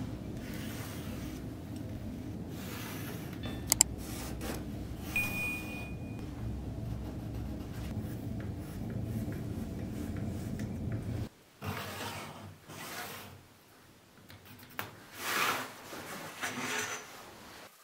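A pencil scratching along a steel ruler on an MDF sheet, with the ruler scraping and sliding over the board and a sharp click near the start. A steady low hum underneath cuts off abruptly about two-thirds of the way through.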